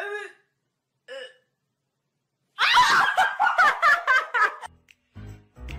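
A woman bursts into loud, hard laughter about halfway through, after two short high sounds in the first second; music with a low beat comes in near the end.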